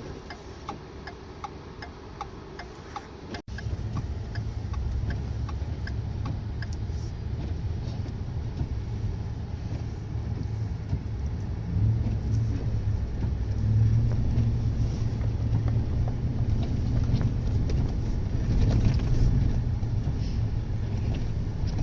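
Ford pickup truck's engine and tyres heard from inside the cab as it drives on a snowy road. A steady low rumble is quiet at first and becomes louder from about three and a half seconds in.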